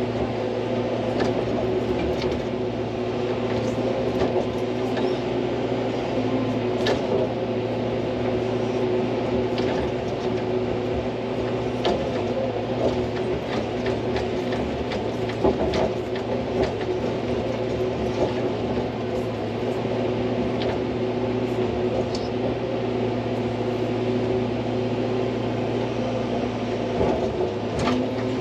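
Hydraulic excavator's diesel engine running steadily under work, a constant drone, with scattered sharp knocks and clacks through it.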